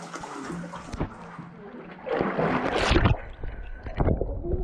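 Water splashing as a swimmer strokes ahead. About two seconds in comes a louder splash, and then the sound turns dull and low as the GoPro dips underwater.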